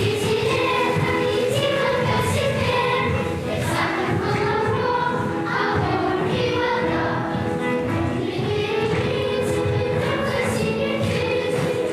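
Children's choir singing a song with musical accompaniment.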